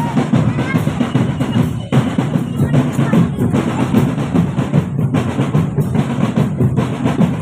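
Marching drum band playing: bass drums and snare drums beating a fast, dense rhythm with snare rolls, briefly breaking off together a few times.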